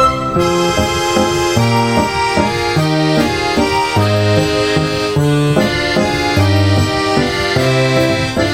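Instrumental background music: a steady, rhythmic tune with a repeating bass line under sustained melody notes.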